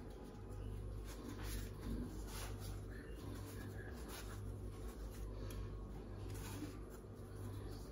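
Faint rustling and soft scraping of hands handling things, a few light strokes scattered through, over a steady low hum.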